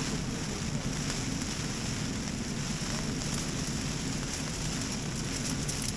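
Rain drumming steadily on the rainfly of an REI Half Dome 2 Plus tent, heard from inside the tent during a thunderstorm.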